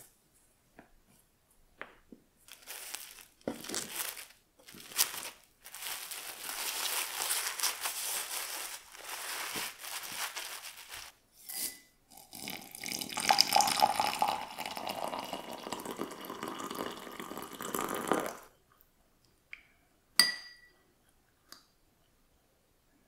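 Rustling and scraping, then water poured into a glass of dried butterfly pea flowers for about six seconds, and a single clink of a spoon on the glass.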